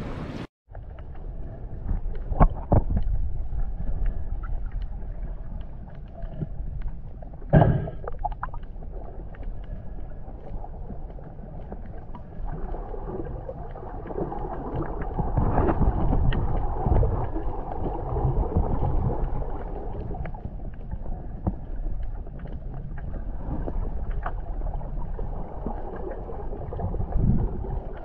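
Muffled underwater sound heard through an action camera's waterproof housing: a low, rumbling wash of moving water that swells and fades, with a few sharp knocks about two and a half seconds in and again near eight seconds.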